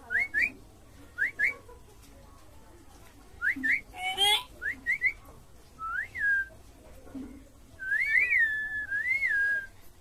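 Clear whistling: short rising whistled notes, mostly in quick pairs, then longer up-and-down whistled phrases near the end. A brief harsh squawk comes about four seconds in.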